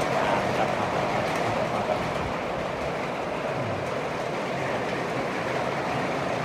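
Rain falling steadily, an even rushing hiss.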